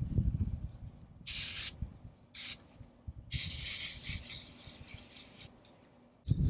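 Hand-pumped pressure garden sprayer hissing from its wand in short bursts as it mists seedling leaves: a short spurt about a second in, a brief one soon after, and a longer spray in the middle. A low rustling noise comes at the start and again just before the end.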